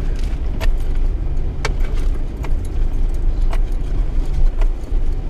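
Mitsubishi Triton 4x4 crawling over rough ground, heard from inside the cab: a steady low engine and drivetrain rumble with sharp knocks and rattles about once a second as the truck bumps along.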